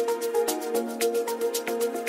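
Amapiano track: quick, even high percussion ticks over held synth chords and short stepping melody notes, with no bass in this stretch.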